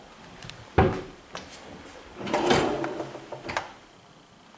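A kitchen cupboard door knocks shut about a second in. Then a kitchenette drawer holding a cutlery tray slides open with a longer, louder scrape and stops with a small click.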